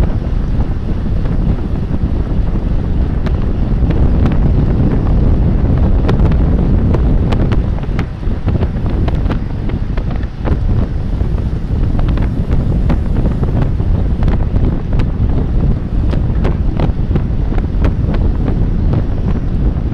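Heavy wind noise buffeting the microphone of a bike-mounted camera as it rides at race speed in a pack, a dense low rumble, with scattered sharp clicks and rattles throughout.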